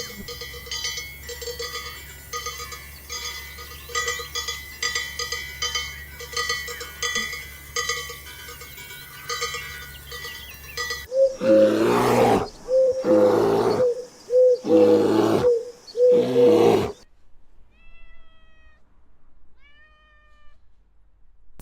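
Farm animals calling: a run of short repeated calls over a steady low hum, then five loud, drawn-out calls in a row, then two faint chirps near the end.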